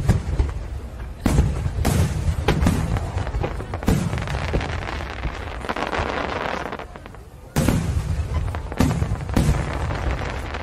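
Aerial fireworks shells bursting in quick succession, a bang every half second or so with rumbling between. There is a short lull past the middle, then a sudden loud bang and the bursts go on.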